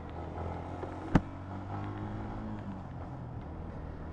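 Yamaha Sniper 150's single-cylinder four-stroke engine running steadily while riding, with one sharp knock about a second in.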